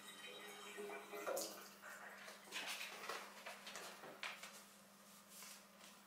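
Faint, scattered rustling and rubbing as paper banknotes are wiped over a face, over a low steady hum.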